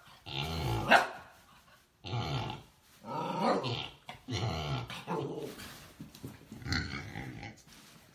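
A husky-type dog growling and barking in a string of about six short, low growl-barks, which get fainter near the end.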